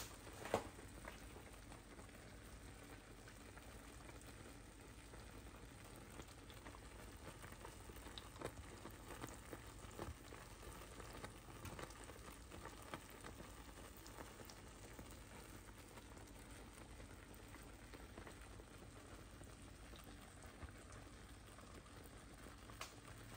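Faint, steady bubbling of beef ribs simmering in braising liquid in a pan, with scattered small pops.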